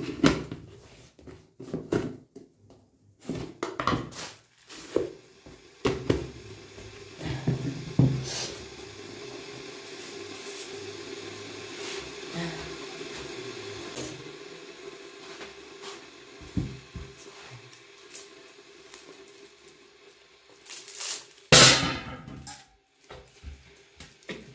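Scattered knocks and thunks of kitchen things being handled and set down, with a faint steady hum through the middle and one loud thump near the end.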